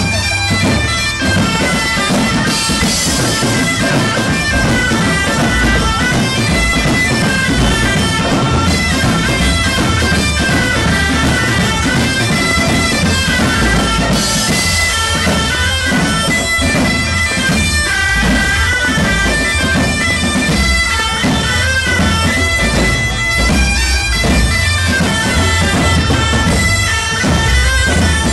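Music with a reedy wind-instrument melody over a low drum beat, running steadily throughout.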